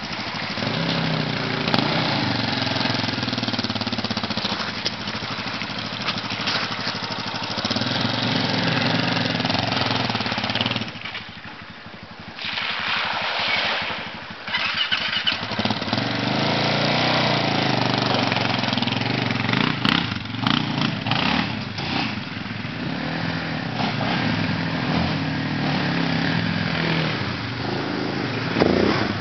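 ATV engine revving up and down as the quad rides through a shallow creek, its pitch rising and falling in waves. About eleven seconds in, the engine sound drops away for a few seconds before coming back.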